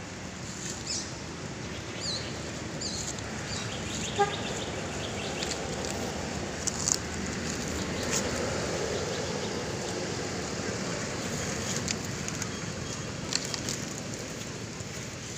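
Outdoor ambience: a steady hiss with a few short, high, falling chirps in the first three seconds, one brief pitched call about four seconds in, and scattered clicks.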